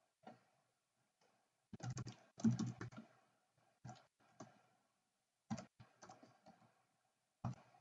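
Faint keystrokes on a computer keyboard. A quick run of key presses comes about two seconds in, followed by scattered single taps.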